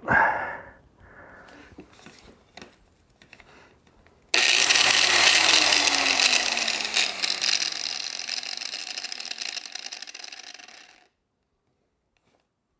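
Angle grinder grinding the edge of a steel mower blade: a loud grinding noise starts abruptly about four seconds in, then fades with a low tone falling in pitch as it winds down, and stops a little before the end.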